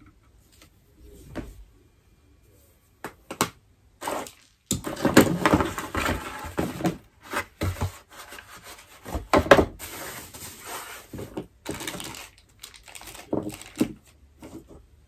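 Handling noise from ring-light and tripod parts: a few sharp clicks and knocks, then several seconds of loud scraping and rustling with more knocks from about five seconds in.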